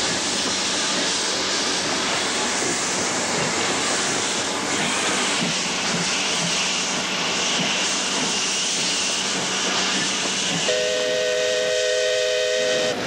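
Steam locomotive hissing steadily with escaping steam. Near the end its steam whistle blows a chord of several notes for about two seconds, then cuts off.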